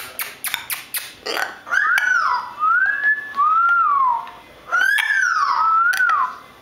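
Hyacinth macaws clucking and chattering: a quick run of sharp clicks, then about six short notes that each rise and fall in pitch.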